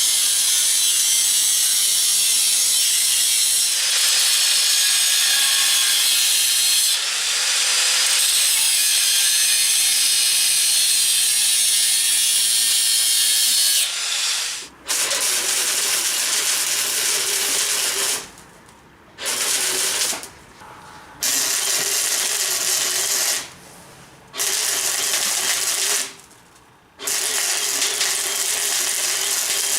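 Power cutting tool cutting through steel exhaust pipe: one long continuous cut of about fourteen seconds, then five shorter runs of two to three seconds each with brief pauses between.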